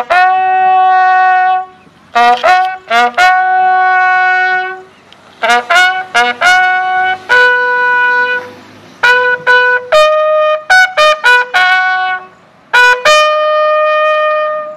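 A bugle sounding a funeral call in several phrases. Each phrase is a run of quick short notes ending on a long held note.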